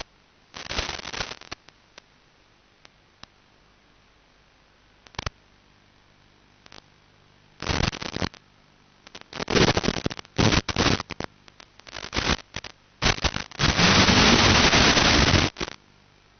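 Bursts of static hiss from an analog FPV video receiver's audio channel as the quad's 5.8 GHz video signal weakens and breaks up. A short burst comes about half a second in, then scattered ticks; the bursts grow denser from about halfway through and end in a long, loud burst of about two seconds near the end.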